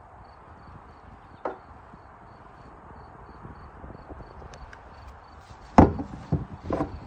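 Hollow knocks on a plastic kayak hull as the angler shifts and handles gear: one knock about a second and a half in, then a louder cluster of thumps near the end. Wind rumbles on the phone's microphone, and a faint high chirping repeats about four times a second.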